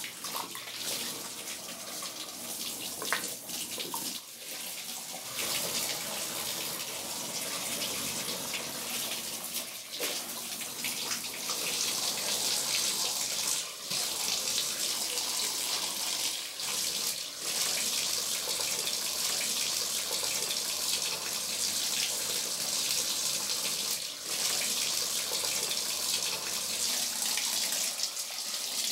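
Water running and splashing in a bathtub as a soap figure is washed by hand; the flow gets louder and steadier from about twelve seconds in.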